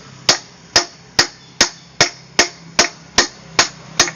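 Hammer tapping a bearing into a Vespa engine case: about ten sharp, evenly spaced strikes, a little over two a second.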